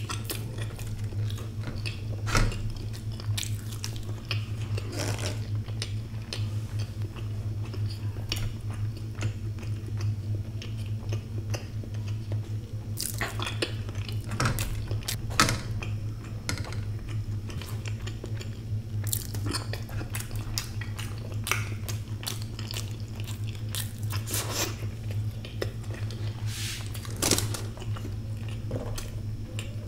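Close-miked chewing and biting of spiced boiled egg halves, wet mouth sounds with scattered sharp clicks, over a steady low hum. Now and then a light clink of fingers and egg against the steel platter.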